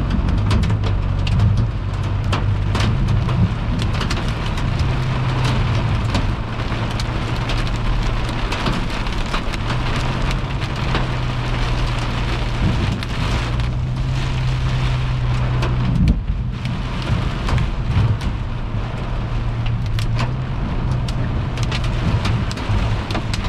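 Hail and heavy rain pelting a car's roof and windshield, heard from inside the cabin: a dense, very loud clatter of sharp hits, with a steady low hum underneath.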